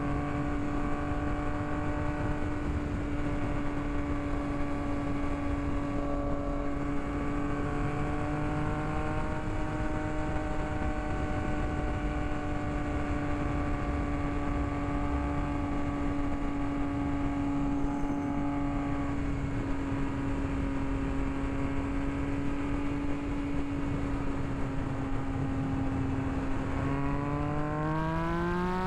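Motorcycle engine running at a steady cruise, its pitch almost constant, over wind and road noise. Near the end the engine pitch climbs steeply as the bike accelerates.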